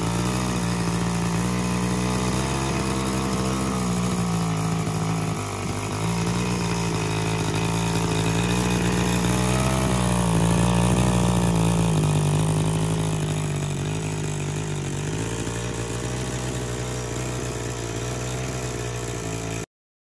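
22cc two-stroke hedge trimmer engine running steadily at low speed, its pitch wavering slightly. It picks up a little about halfway, then settles back, and cuts off suddenly near the end.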